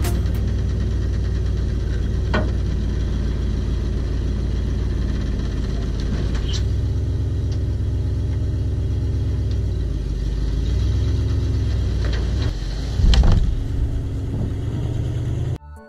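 Compact excavator's diesel engine running steadily as it works, with a few sharp knocks and a louder surge about thirteen seconds in.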